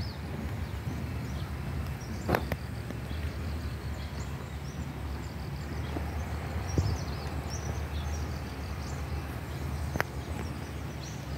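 Outdoor ambience: a steady low rumble with faint, scattered high bird chirps, and two sharp clicks, one about two seconds in and one near the end.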